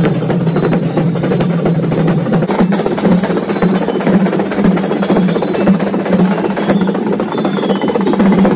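Marching drum line of snare and bass drums playing, a dense, quick run of drumbeats.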